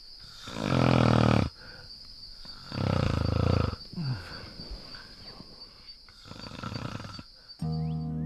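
A person snoring loudly from close by: long, rasping snores that come again every two and a half to three seconds, the loudest about a second in and about three seconds in, with weaker ones after.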